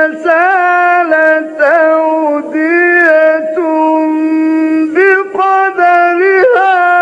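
A male Quran reciter chanting in the ornamented mujawwad style: long, high held notes with wavering melismatic turns, broken by a few short pauses.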